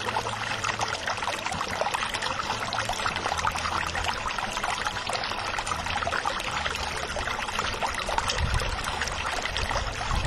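Steady rushing spray of water from a fire hose jet, with a low droning underneath.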